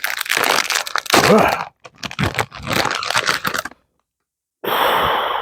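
Plastic Lay's chip bag being handled, crinkling and crackling, then torn open.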